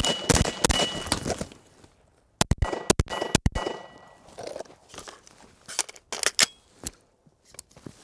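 Three quick suppressed 5.56 rifle shots, then about two seconds later three pistol shots about half a second apart: a timed rifle-to-pistol transition drill, the last shot about 4.6 s after the shot timer's start beep. A few fainter clicks and knocks follow near the end.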